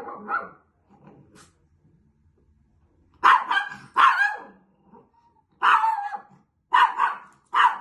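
A dog barking, about five loud barks in quick succession starting about three seconds in, after a quieter start.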